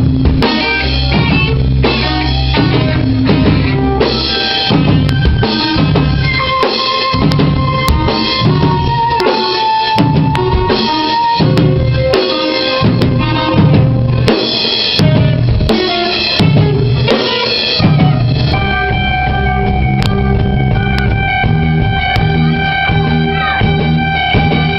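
A live prog rock band playing loudly, with the drum kit to the fore: bass drum and snare hits under held notes from pitched instruments. About eighteen seconds in, the band moves to longer sustained chords.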